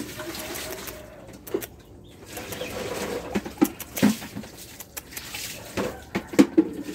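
Irregular footsteps and scuffs on stone and gravel with several sharp knocks, the loudest about four seconds in and near the end. A bird calls faintly in the background during the first second or so.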